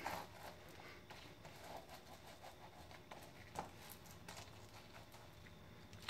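Faint rustling and soft taps of gloved hands pressing and smoothing glued vinyl-coated mesh fabric down onto a board. One sharper tick comes about three and a half seconds in.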